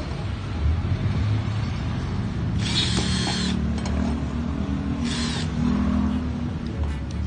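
Cordless drill boring through a flat steel bar, the motor running steadily under load. Two brief high-pitched bursts come as the bit cuts, one about three seconds in and a shorter one about five seconds in.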